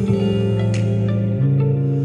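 Instrumental passage of a pop song with no vocals: sustained chords over a bass line, changing chord about one and a half seconds in.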